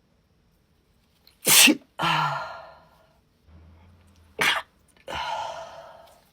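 A woman sneezing twice, about three seconds apart, in a sneezing fit. Each sneeze is a sharp burst followed by a trailing breath that fades over about a second.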